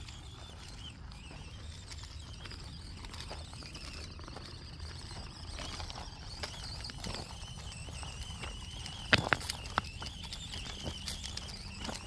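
Axial SCX24 Deadbolt micro RC crawler's small electric motor and gears whining faintly, the pitch wavering as it is throttled, while its tyres and chassis click and knock over loose rocks. A sharp knock a little after nine seconds is the loudest sound.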